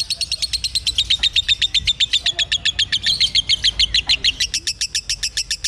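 Lovebird singing a long, unbroken run of rapid, high-pitched chirps, about nine a second.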